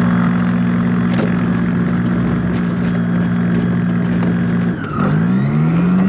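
Motor glider's propeller engine, on its mast just behind the cockpit, running steadily before takeoff. About five seconds in, its pitch dips sharply and then climbs back up.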